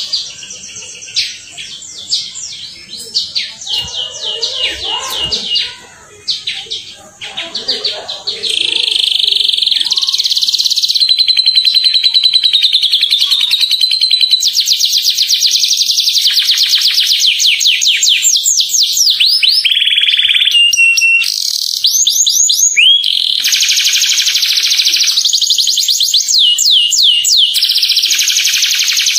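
Domestic canary singing: fast rolling trills and clear whistled notes, in short broken phrases at first, then loud and nearly unbroken from about eight seconds in.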